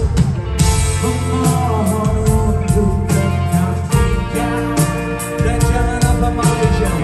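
Live rock band playing: electric guitars and a drum kit keeping a steady beat, with a singer's voice, heard from within a concert crowd.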